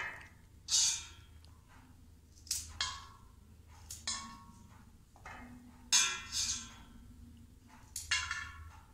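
Kitchen knife scraping the skin off a fresh carrot, in a string of short scraping strokes, some in quick pairs, a few with a faint metallic ring.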